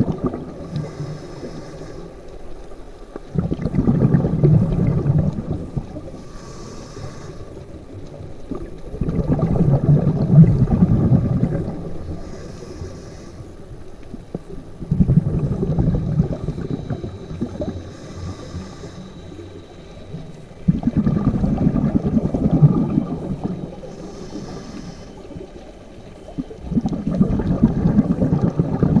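Scuba diver breathing through a regulator underwater: a short faint hiss on each inhale, then about two seconds of loud gurgling exhaled bubbles, repeating roughly every six seconds.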